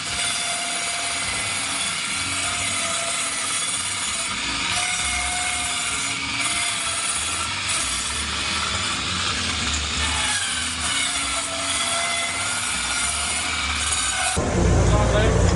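Skewers of sheep meat (arrosticini) sizzling over a charcoal grill: a steady, dense hiss. Near the end it switches abruptly to a louder low rumble.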